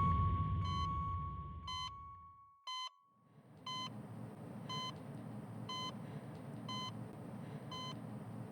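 A loud low rumble with a steady high tone fades away, then a hospital heart monitor beeps steadily about once a second.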